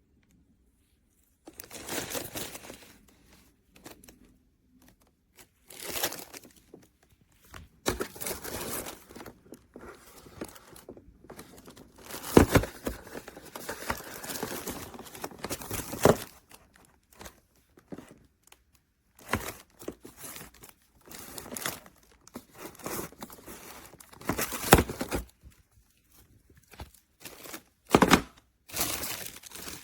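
Packaging being handled and opened: irregular bouts of crinkling and tearing, a second or two each, with a few sharp knocks.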